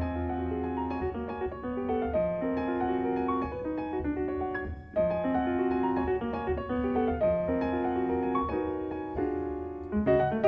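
Jazz piano trio music: piano playing a repeating, rhythmic figure of short notes and chords over a low bass line, breaking off briefly about five seconds in.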